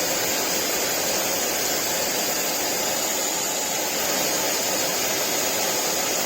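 Slopehill compact hair dryer with a high-speed brushless motor running at full power with its diffuser fitted: a steady rush of blown air with a high whine above it.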